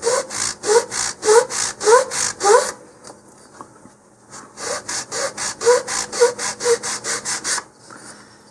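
Sandpaper on a wooden sanding block rasping against the grain of a wooden nose cone shoulder in brisk back-and-forth strokes, pausing for about two seconds in the middle.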